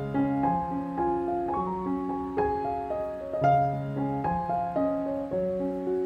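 Background piano music: single notes struck one after another over held lower notes, changing every half second or so.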